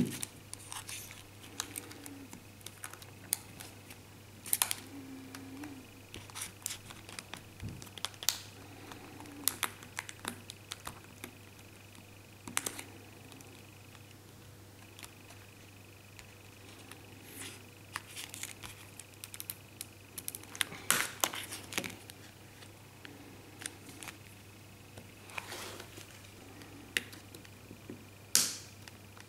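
Plastic prying pick working around the edge of a Huawei Y550 smartphone's plastic frame, with irregular small clicks, snaps and scrapes as the housing is prised apart.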